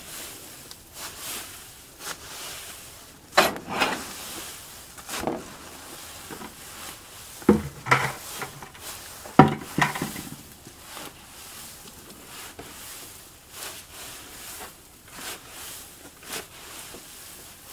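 Manure fork stirring and tossing dry leaves, straw and shredded paper: irregular rustling and crunching, with a few louder crunches around the middle. The fork is mixing the brown layer of a hot compost pile so that it keeps open pore space.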